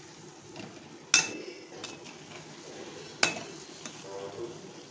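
A donut deep-frying in hot oil with a steady sizzle, while a metal slotted skimmer turns it, knocking sharply against the pan twice.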